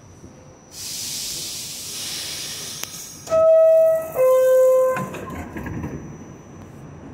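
Door-closing chime of an R46 subway car: two loud held tones, the second lower than the first, the signal that the doors are about to close. A steady hiss comes before it and a low rumble follows.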